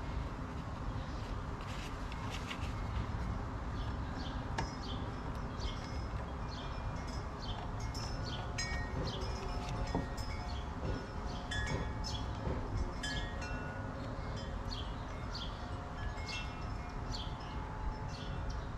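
Small metallic clinks and pings, scattered irregularly, as wrenches and steel hydraulic fittings knock together while a hydraulic hose fitting is threaded onto the return filter housing by hand.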